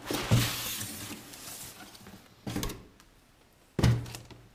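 Packaging being handled while the test bench is unpacked: rustling and sliding for the first second and a half with a soft thump, then two short knocks, the second one the loudest, near the end.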